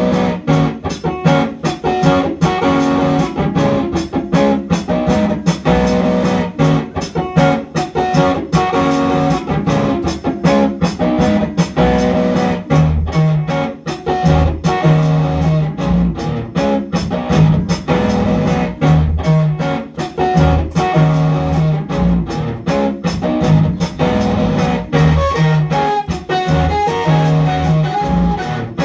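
Electric guitar played live through an amplifier, with fast, rhythmic repeated picked notes. About halfway through, deeper low notes join in a pulsing bass part.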